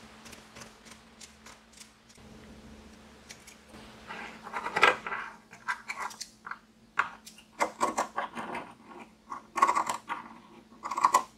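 Scissors cutting through lace fabric, close-miked: a run of crisp snips, sparse and soft at first, then denser and louder from about four seconds in.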